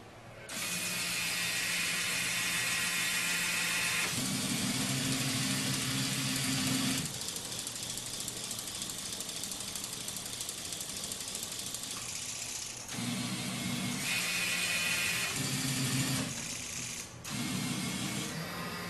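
Small electric motors and gear drives of a tabletop factory model whirring as its conveyors and robot arm run. The motor hum changes pitch and level in stages every few seconds as different motors start and stop, briefly dropping out near the end.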